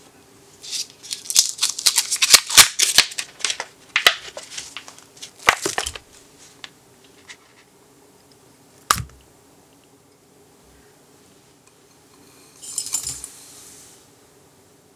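Ingredients going into a glass mixing bowl. First comes several seconds of sharp crinkling and crackling. A single thud follows near the middle as a block of softened cream cheese lands in the bowl. Near the end there is a short grainy hiss of granulated sugar being poured in.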